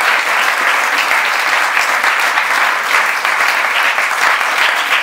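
Audience applauding, a dense and steady clatter of many hands clapping.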